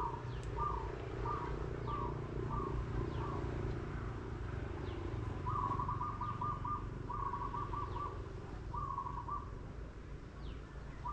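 A bird calling: a series of short, evenly spaced notes, about two a second, then three quick stuttering phrases of about a second each. A steady low rumble runs underneath.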